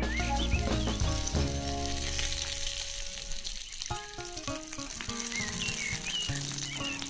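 Food sizzling as it fries in hot oil in a tiny pan, a steady crackling hiss, with background music underneath.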